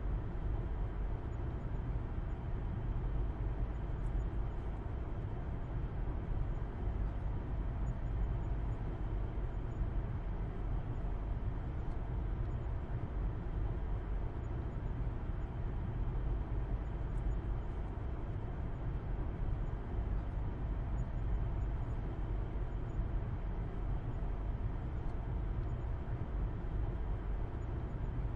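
Steady interior rumble of a car driving at an even speed: low engine and road noise with no changes or distinct events.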